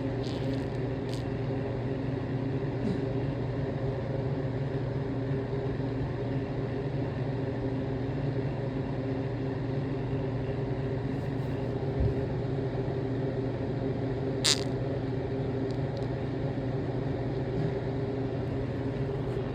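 A steady low hum that does not change, with a single sharp click about fourteen and a half seconds in.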